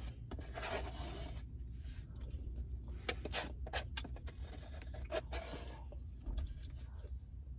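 Light scratching and rubbing from a hand working at her head, with short clicky strokes scattered irregularly through it, over a steady low hum inside the car.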